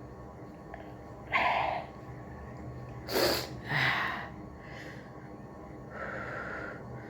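A person's short sniffs and snorts through the nose, a few sharp bursts, the loudest about three seconds in, while the nose is being tickled to bring on a sneeze.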